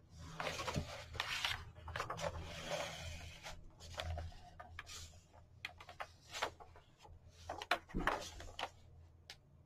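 Thin paper pages of a coloring book being turned by hand, rustling. One long turn fills the first few seconds, then a few soft taps, and a second turn comes near the end.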